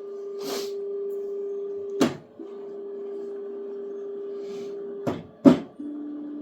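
Elegoo Neptune 4 Max 3D printer running its automatic bed-levelling routine: the stepper motors whine steadily as the print head moves. Three sharp clicks break the whine, one about two seconds in and two close together near five seconds. After the last click the whine resumes at a lower pitch.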